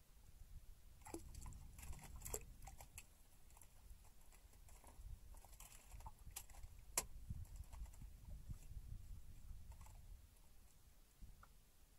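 Faint scattered clicks and taps from a hand line and gear being handled against the side of a small fishing boat, over a low rumble. The sharpest click comes about seven seconds in.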